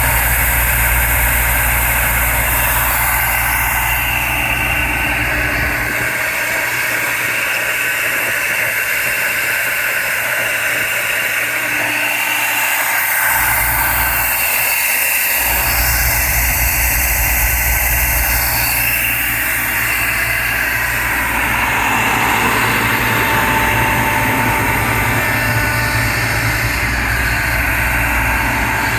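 Kaeser ASD 40 T 40 hp rotary screw air compressor running, a loud steady machine noise with a low hum. The low hum falls away for several seconds about a fifth of the way in, then comes back.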